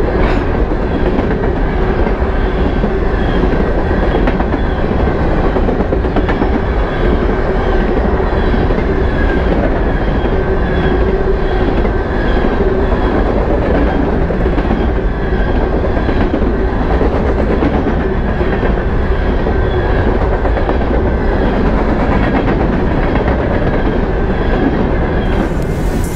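A freight train of BNSF covered hopper cars rolling past close by: a loud, steady rumble of steel wheels on rail with faint, evenly repeating clicks. Electronic music cuts in about a second before the end.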